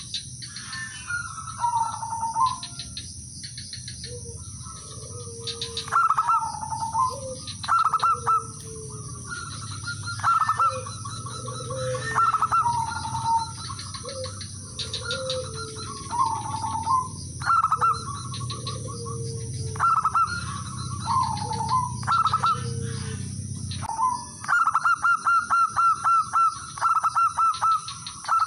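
Male zebra dove (perkutut) cooing: repeated phrases of quick staccato notes every two seconds or so, with lower, softer notes between them. Near the end comes a fast unbroken run of notes.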